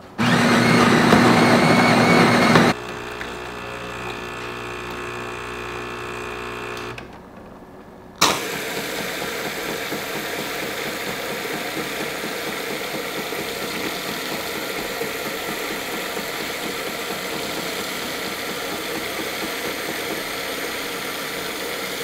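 Jura S8 super-automatic espresso machine making a flat white: the built-in grinder whirrs loudly for about three seconds, the machine hums more quietly for a few seconds, then about eight seconds in the fine foam milk frother starts a steady hiss as it froths milk into the glass.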